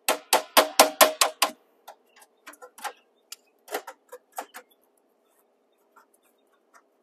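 Sharp metallic taps on the steel box of an electrical panel as a 3/4-inch knockout is knocked out: a quick run of about eight strikes in the first second and a half, then scattered lighter clicks as the slug is worked loose. The clicks die away about two-thirds of the way through.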